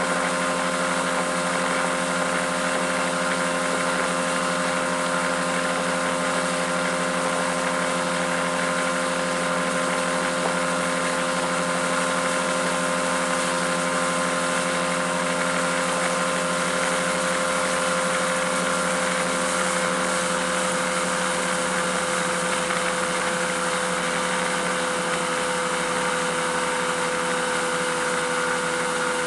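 Mercury 200 outboard motor running steadily at towing speed, a constant engine whine with a few steady tones, over a constant rush of water and wind.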